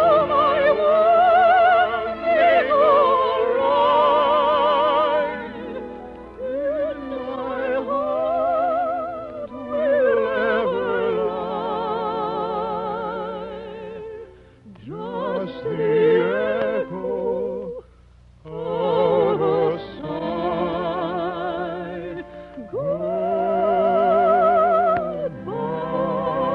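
A high operatic voice, a soprano, singing an operetta song in long held notes with wide vibrato, breaking off briefly twice in the second half. It comes from an early-1950s radio recording, so the top end is dull.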